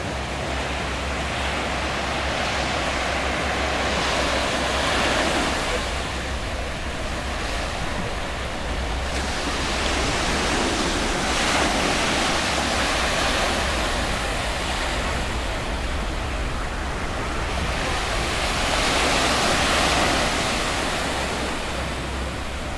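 Ocean surf washing onto the shore: a steady hiss that swells three times, about seven seconds apart, as waves break.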